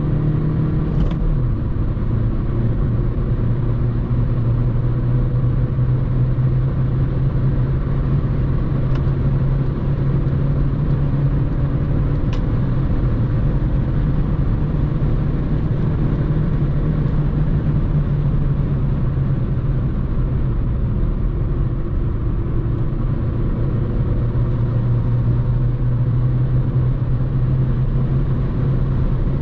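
Mercedes-Benz A180d (W176) 1.5-litre four-cylinder turbodiesel running at high road speed, its drone holding a constant pitch with no gear changes or revving, under steady tyre and wind noise.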